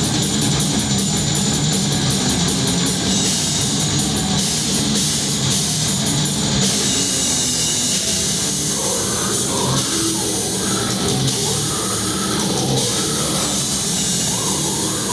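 A blackened death metal band playing live on stage, with distorted electric guitars and a pounding drum kit, heard from within the audience. The sound is a loud, dense, unbroken wall.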